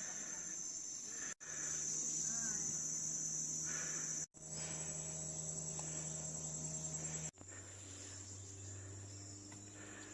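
Steady, shrill chorus of rainforest insects, broken by three brief, sudden drop-outs where the recording cuts.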